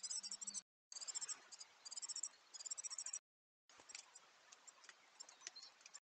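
A small songbird singing a quick, high chirping phrase over and over during the first half. After a brief gap, only scattered faint clicks and a few soft chirps are left.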